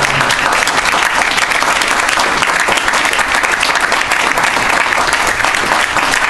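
Audience applauding loudly and steadily, many hands clapping at once.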